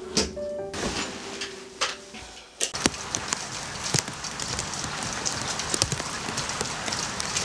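Soft music notes that stop about two and a half seconds in, then a steady hiss of rain with many sharp drips.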